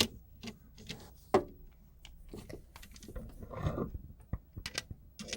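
Scattered small clicks and scrapes of a screwdriver, wire and receptacle being handled while a bare copper ground wire's loop is hooked around the receptacle's ground screw.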